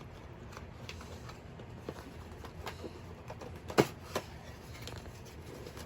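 Headset packaging being handled: scattered small clicks and rustles of cardboard and plastic, with one sharp knock a little under four seconds in and a lighter one just after.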